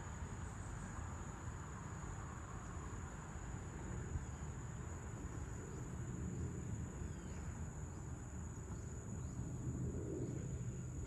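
Evening outdoor ambience: crickets trilling in one steady high note over a low, even rumble, with a few faint short falling chirps in the second half.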